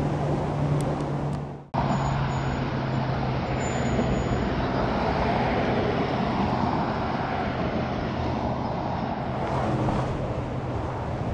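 Road traffic noise from cars on a multi-lane road, with a steady low engine hum under it. The sound drops out for a moment about two seconds in, then picks up again.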